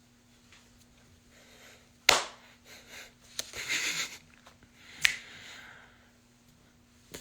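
Eating and handling noises close to a phone microphone: a sharp click about two seconds in, a short breathy rush like a sniff or slurp about a second later, and another sharp click near the end, over a faint steady hum.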